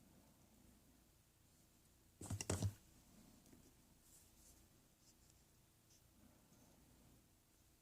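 A quick cluster of sharp clicks, half a second long, about two seconds in. Otherwise near silence, with a few faint small ticks.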